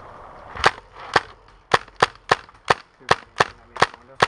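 Airsoft gunfire: about ten sharp single cracks in quick succession, the first under a second in and the rest a third to half a second apart.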